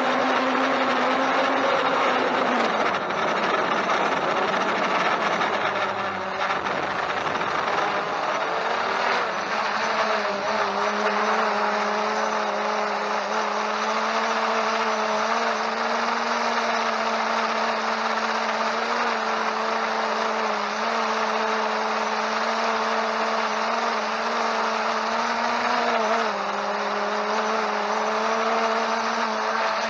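Holystone HS700D quadcopter's electric motors and propellers whining at a steady pitch over a hiss, the pitch shifting a few times as the motors speed up and slow down.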